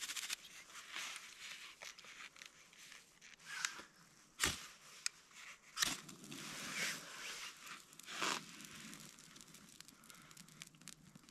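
Dry grass and tinder being crumpled and fluffed by hand: faint crinkling and rustling, with two sharp knocks about four and a half and six seconds in.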